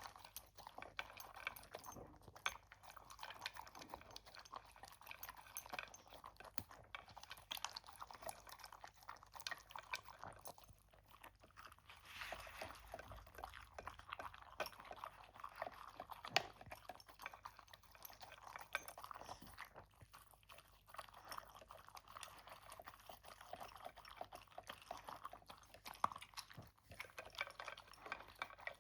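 A pet chewing its food, faint crunching with many small clicks throughout.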